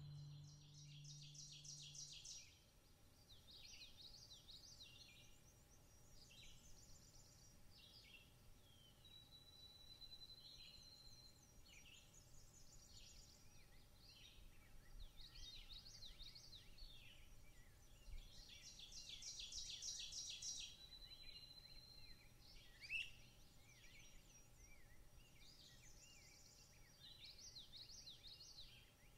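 Faint chorus of songbirds: many short chirps and trills, with one bird's long, level whistled note coming back about every ten seconds.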